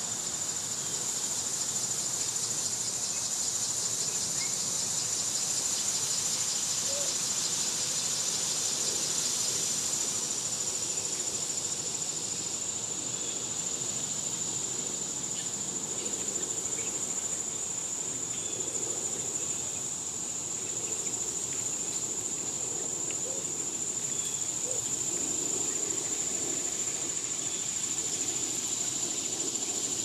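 A steady, high-pitched insect chorus, with a faster pulsing insect call layered over it for the first dozen seconds before it drops out.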